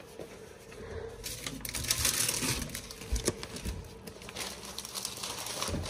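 Rustling with scattered light clicks and knocks, strongest in the first half, with one sharper knock about three seconds in, as items are handled.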